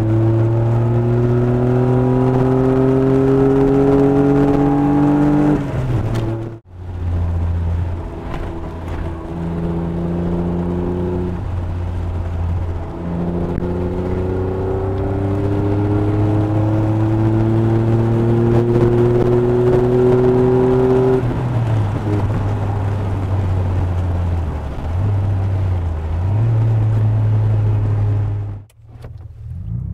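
Vauxhall Cavalier GSi 4x4's 3.0 V6 engine, fitted with tubular manifolds and a 2.5-inch exhaust, pulling hard under acceleration, its note rising steadily in pitch. The sound cuts off abruptly about six and a half seconds in. The engine then climbs in pitch again for several seconds before settling to a steady drone, and cuts off sharply once more near the end.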